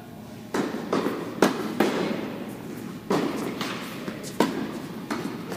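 Tennis ball struck by rackets and bouncing on an indoor hard court during a rally: a series of sharp pops at irregular intervals, each ringing briefly in the hall.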